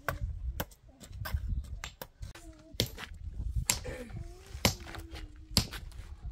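A series of sharp knocks, about once a second, over a low rumble, with a voice heard briefly between them.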